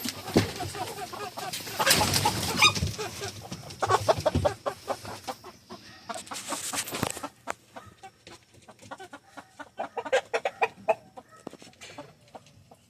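Chickens clucking and squawking at close range, with scuffling noise through the first half and many short separate clucks after that.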